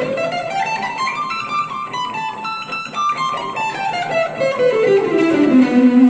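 Electric guitar playing a fast scale run in C major with sweep and alternate picking, one note after another. The notes climb steadily to a peak about halfway through, then descend back down to the starting register near the end.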